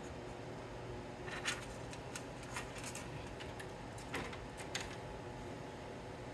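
A few light, sharp clicks and small rattles of hardware being handled, over a steady background hiss; the loudest click comes about a second and a half in.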